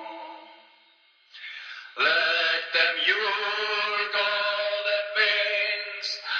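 Music with chant-like singing: a held sung note fades out within the first second, there is a brief hush, then a louder sung passage starts about two seconds in.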